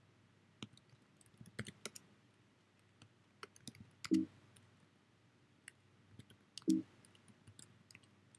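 Computer keyboard keys clicking in irregular bursts as a terminal command is typed. Twice, about four and six and a half seconds in, there is a brief, louder low-pitched blip.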